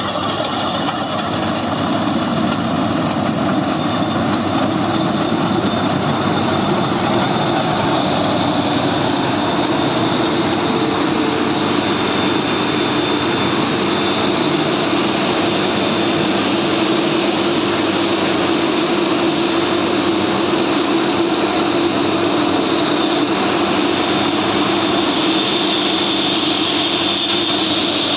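Yanmar YH850 combine harvester running under load while harvesting rice: the steady noise of its engine and threshing machinery, with a constant hum and a faint high whine.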